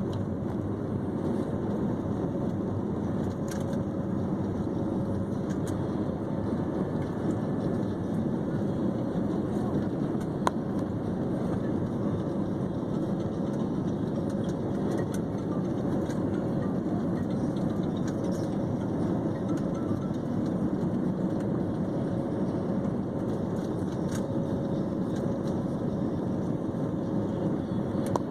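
Steady drone of an airliner's engines and airflow heard inside the passenger cabin, with one brief click about ten seconds in.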